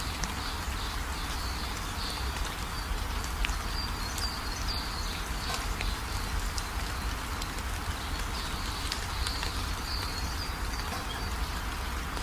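Outdoor ambience: a steady hiss with a low rumble, with birds chirping high now and then.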